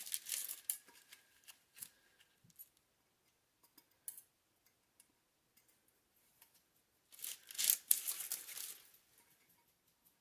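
Tape being peeled off the sublimation paper wrapped around a tumbler, worked loose with tweezers: a short ripping rustle at the start and a longer one about seven seconds in, with small clicks and taps between.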